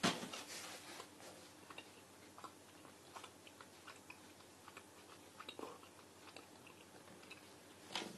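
A person chewing food close to the microphone: faint, scattered wet clicks and smacks of the mouth, after one sharp, louder sound right at the start.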